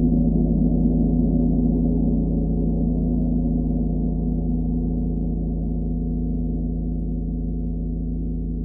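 40-inch chau gong ringing on after soft strokes from a felt mallet: a low, sustained hum of many overlapping tones that slowly fades.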